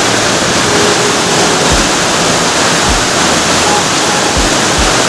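Waterfall rushing close by: a loud, steady roar of falling water, with a few brief low thumps.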